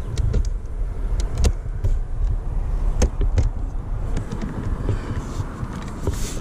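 Carbon fiber interior trim piece being fitted into a car door panel by hand: scattered sharp plastic clicks and taps over a steady low rumble.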